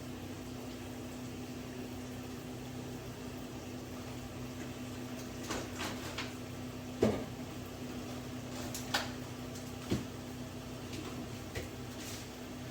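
Kitchen handling sounds over a steady low electrical hum: a handful of short, light knocks and clinks spread through the second half, as of containers and utensils being picked up and set down.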